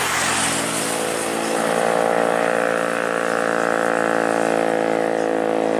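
Traffic climbing a hill. A box truck passes close with tyre and road noise at the start. From about a second and a half in, a heavy vehicle's engine runs at steady revs under load on the climb, a continuous hum with many even overtones.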